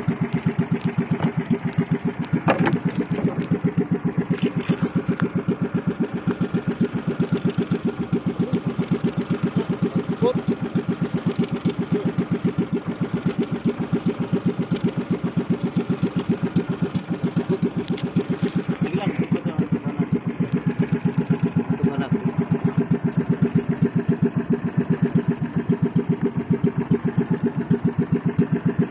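Small inboard engine of a wooden outrigger fishing boat running steadily with an even, rapid beat.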